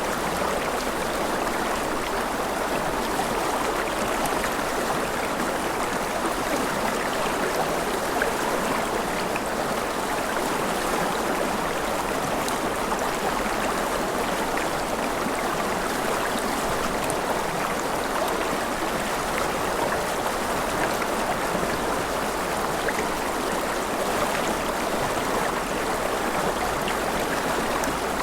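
Gentle rain falling steadily: an even hiss of water that runs without a break.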